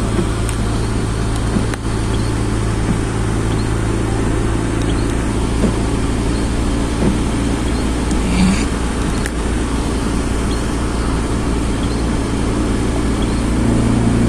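Steady cabin noise of a car driving on a wet highway: a low engine and road drone with the even hiss of tyres on the wet road, and a few faint clicks.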